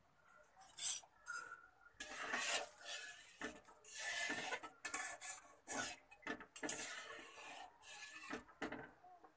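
Metal spatula stirring soup in a metal kadhai, scraping and rubbing against the bottom and sides of the pan in irregular strokes from about a second in.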